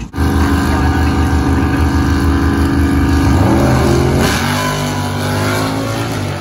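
Two drag-race vehicles' engines held at steady high revs on the start line, then launching about four seconds in, the engine note rising through gears and dropping lower as they pull away down the strip.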